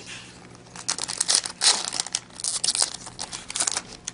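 Foil trading-card pack wrapper crinkling and tearing open, in a run of crackling bursts starting about a second in.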